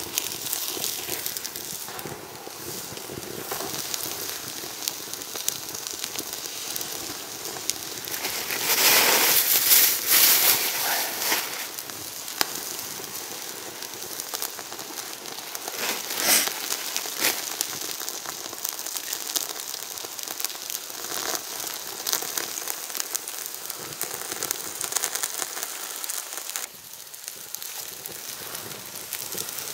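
Small open wood fire crackling and hissing, with sucuk sausage cooking directly on the embers. Dense fine crackles run throughout, with a louder surge of crackling and hissing about nine to eleven seconds in and a sharp pop near sixteen seconds.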